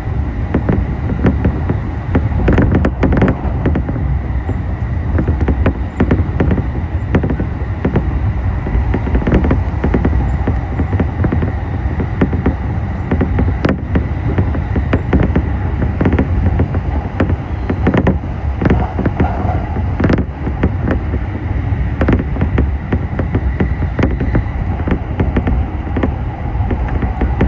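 Running noise of a moving train heard from inside the car: a steady rumble of wheels on the rails, broken by frequent clicks and knocks as the wheels pass rail joints and points, with a faint steady high whine.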